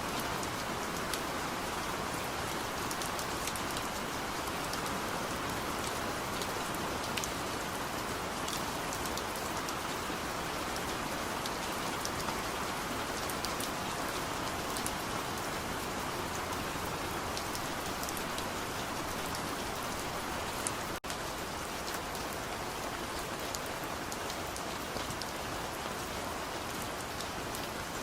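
Steady rain falling: a dense, even hiss dotted with small, sharp drop ticks. The sound cuts out for an instant about three-quarters of the way through.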